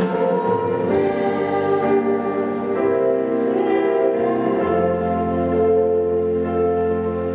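A girl singing a slow song into a microphone with live instrumental accompaniment, amplified through loudspeakers; she holds long notes.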